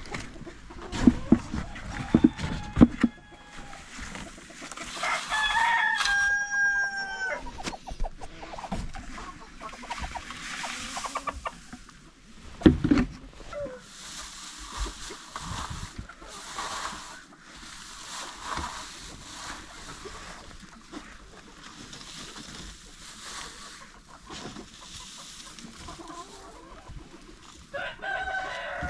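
Chickens clucking, with a rooster crowing once about six seconds in and starting another crow near the end. Several sharp knocks come in the first few seconds, and one loud thump comes about thirteen seconds in.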